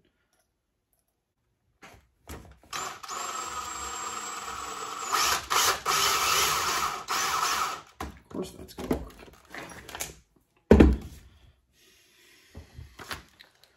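Old DeWalt XRP cordless drill running for about five seconds, driving small wheel bolts; it gets louder partway through. Then a few clicks and one loud knock.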